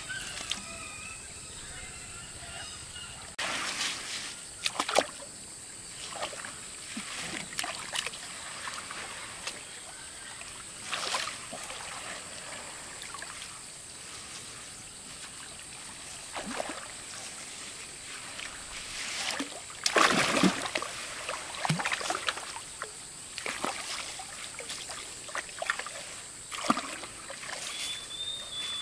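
Water splashing and trickling in irregular bursts, with the loudest splashes about twenty seconds in.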